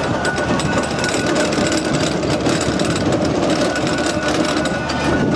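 Steam engine of a 1929 Fowler road roller running, with a fast, even mechanical clatter and a thin steady tone above it.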